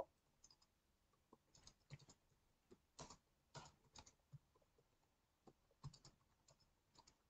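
Faint typing on a computer keyboard: a dozen or so soft, irregular key clicks, unevenly spaced.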